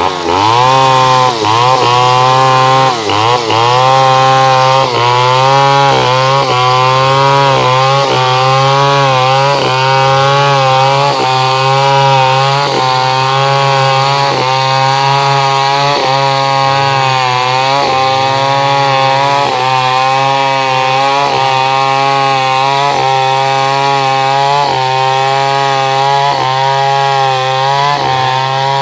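Chainsaw running at high revs and cutting wood. Its engine pitch dips and recovers about once a second as the chain bites, with sharper swings in the first few seconds.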